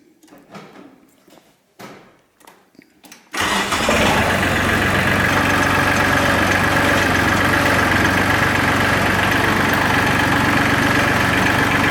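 New Holland TC33DA compact tractor's diesel engine starting abruptly about three seconds in, then running steadily, after a few faint knocks.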